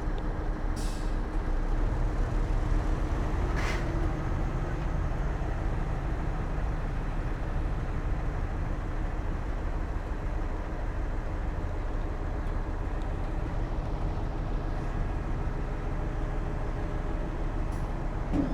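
Heavy diesel earthmoving machinery running steadily with a low rumble, with a few short hisses about a second in, near four seconds in and near the end.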